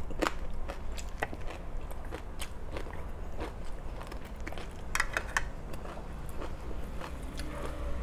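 Chewing and biting of crunchy food from a meal of crispy pork and fresh vegetables: an irregular run of sharp crunches, with a louder cluster about five seconds in.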